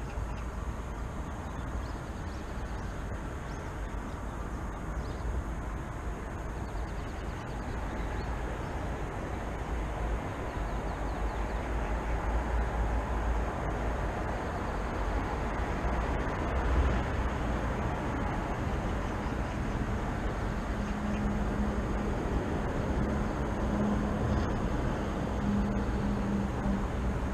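Steady city traffic rumble, swelling a little louder around the middle, with a low engine hum joining in during the last third.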